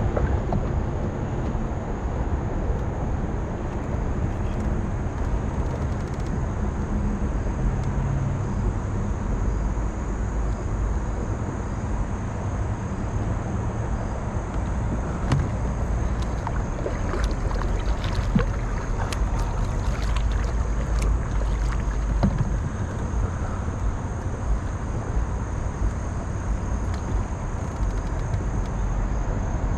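Steady wind rumble on the microphone over water around a kayak, with scattered light clicks and knocks through the middle stretch.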